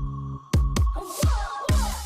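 Electronic dance music with a heavy, punchy bass drum beat and a sustained bass line.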